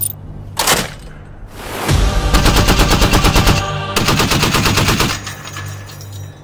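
Heavy machine gun on the remote weapon station of a Milrem THeMIS robotic vehicle firing two rapid bursts of automatic fire, the first about two seconds in and lasting over a second and a half, the second about four seconds in and a little shorter.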